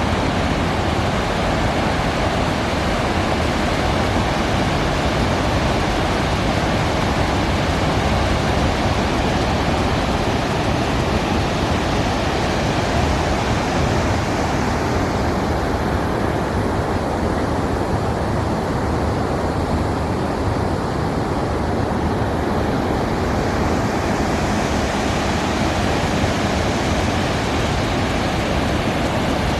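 Waterfall: a steady, loud rush of falling water, with the hiss softening a little for a few seconds midway.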